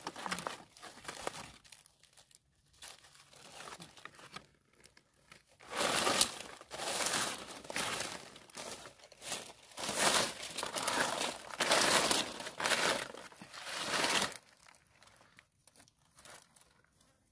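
Dry fallen leaves rustling and crackling as hands dig through the leaf litter to pull up mushrooms. The rustling comes in several loud bursts from about six to fourteen seconds in, with softer rustles before and after.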